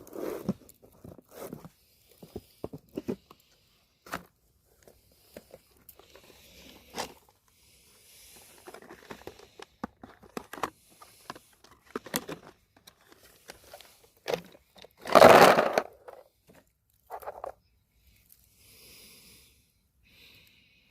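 Scattered clicks, scrapes and rustles of close handling, with one louder, noisy burst lasting under a second about fifteen seconds in.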